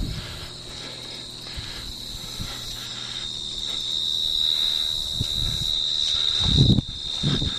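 Insects trilling in a steady, high, continuous tone that grows louder a few seconds in. A few short low thumps or rustles sound near the end.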